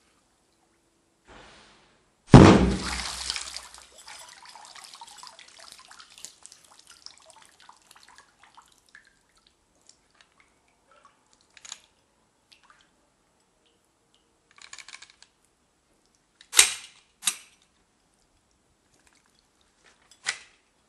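A Glock pistol shot fired underwater: one loud report about two seconds in, followed by several seconds of splashing and trickling water that slowly fades. A few shorter, sharper knocks come later, the loudest pair near the end.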